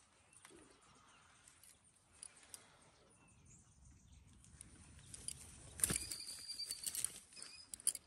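Faint handling noises as a small trout is unhooked in a landing net with fishing pliers: quiet rustling, then about six seconds in a burst of sharp clicks and knocks from the pliers and net.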